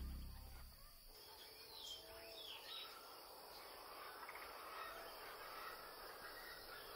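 Background music fading out in the first second, then faint natural desert ambience: a steady high insect drone with a few short bird chirps about two to three seconds in.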